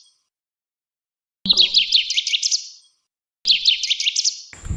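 Eastern bluebird singing: phrases of quick high warbled notes, each about a second and a half long, repeated with short pauses.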